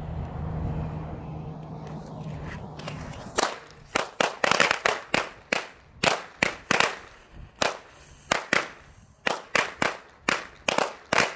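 A string of vintage Black Cat 1-inch firecrackers from a 50-shot pack going off on a steel drum: sharp bangs in an uneven run, about two or three a second, starting about three and a half seconds in. Before the first bang there is a low steady hum.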